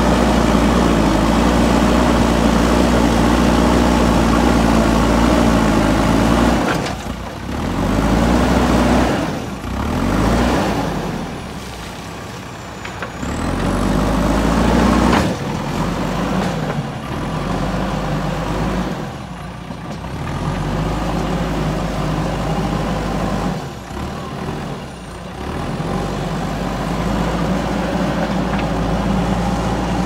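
JCB 3DX backhoe loader's diesel engine working hard as the front loader pushes and lifts soil. The engine note drops back briefly several times and climbs again.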